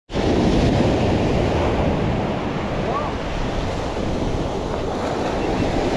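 Waves breaking and washing up a sandy shore close by, a steady rush of surf, with wind buffeting the microphone.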